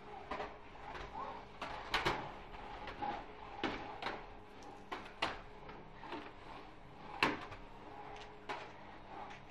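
Irregular knocks and clatter of a vacuum cleaner's nozzle and hose bumping the floor and door frame as two terriers tussle with it, about a dozen sharp knocks over a faint steady hum.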